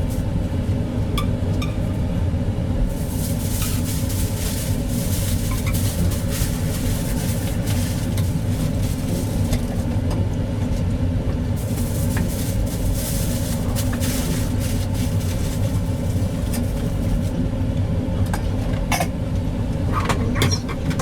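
A steady low machine hum and rumble, with a hiss that swells and fades.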